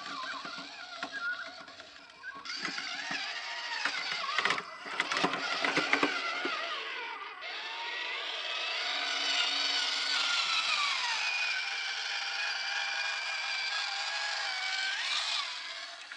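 Electric drive motor and two-speed gearbox of an FMS FCX24 K5 Blazer RC crawler whining, the pitch rising and falling with the throttle. Around four to six seconds in there is a run of knocks and clatter from the tyres and chassis on rock.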